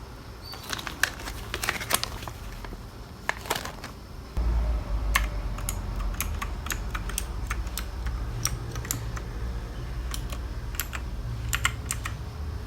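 Keys of a mechanical keyboard pressed one at a time in irregular clicky strokes, as Fn-key combinations are tried to change the backlight colours. A low rumble joins about four seconds in.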